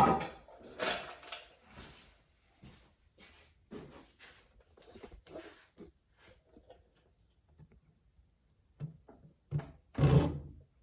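Irregular short knocks and scrapes from hand work on a saw chain and tools, the loudest about a second in and near the end.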